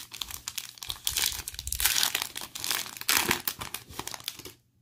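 Foil trading-card pack wrapper (2020 Panini Mosaic football) crinkling and tearing as it is ripped open by hand. The crackling stops abruptly near the end.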